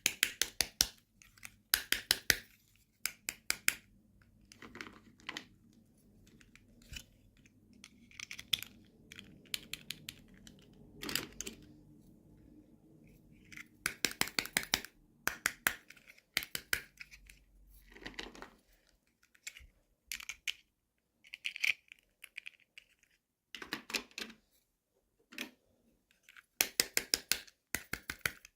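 Plastic toy packaging and small toy pieces being handled during an unboxing: irregular bursts of rapid clicks and taps with soft crinkling between them.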